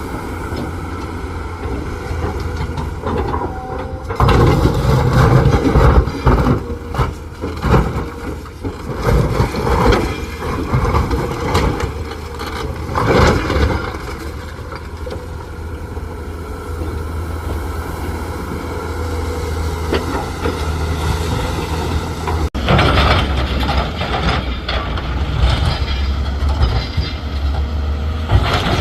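Volvo hydraulic excavator's diesel engine running steadily under load while its bucket digs and loads broken basalt, with rock clattering and knocking, heaviest in the first half.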